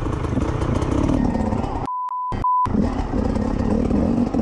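Dirt bike and quad engines running. About two seconds in, the audio drops out for two short censor bleeps, a pure steady beep, the first longer than the second.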